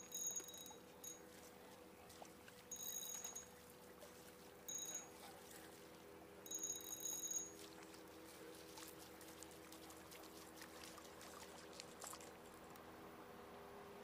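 Fishing reel being cranked in four short spurts of high whirring as a hooked crappie is reeled in, over the low steady hum of the boat's motor at trolling speed. Small splashes and drips follow as the fish comes up to the boat.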